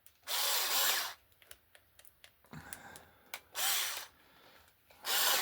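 Small power drill with a 3.3 mm bit running in three short bursts, each spinning up as it drills a hole. Light clicks and taps come between the bursts.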